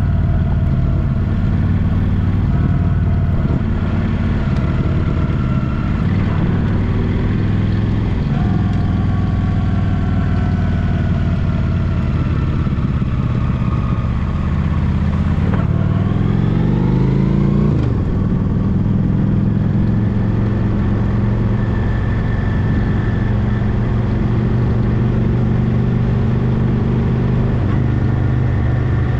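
Honda Shadow VT750 V-twin motorcycle engine running under way. The engine note shifts and drops about 8 seconds in, then climbs steeply and falls back again near 18 seconds as the engine revs up and shifts gear.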